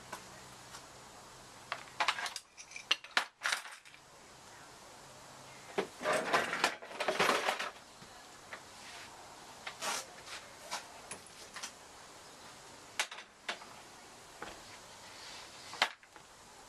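Metal clinking and clattering of a screwdriver and loose sheet-metal engine shields being worked off: scattered sharp clicks, with two longer spells of rattling, one a couple of seconds in and a longer one about six seconds in.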